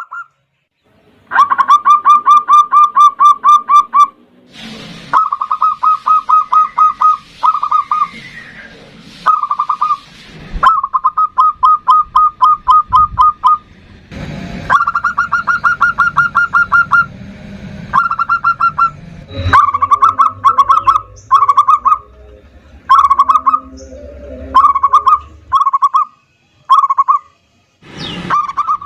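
Zebra dove (perkutut) singing in long runs of rapid staccato cooing notes, a trill-like phrase repeated again and again with short pauses, the runs becoming shorter and choppier toward the end. A few brief rustling bursts fall between phrases.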